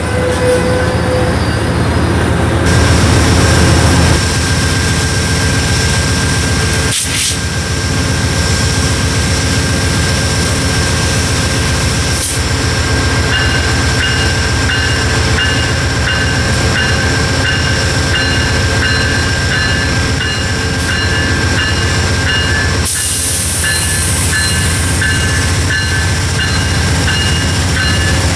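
A train passing close by, with a steady loud rumble of diesel locomotives and rolling railcars. From about halfway on, a bell rings steadily about twice a second.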